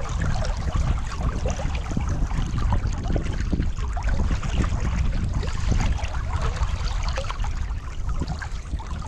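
Wind buffeting the microphone in a steady low rumble, over the rush and lapping of river water.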